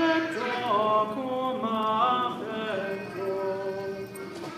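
Unaccompanied singing of a slow sacred chant: voices holding each note and stepping from pitch to pitch.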